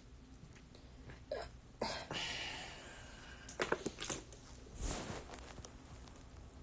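Faint, scattered mouth and breath noises and handling clicks from a man close to a phone's microphone: a short sound, a breathy hiss, a few clicks and one more short noise.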